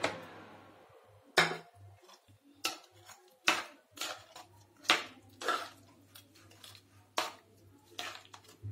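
Steel spoon clinking and scraping against the sides of a metal pan while stirring thick rice kheer, about ten sharp clinks spaced half a second to a second apart.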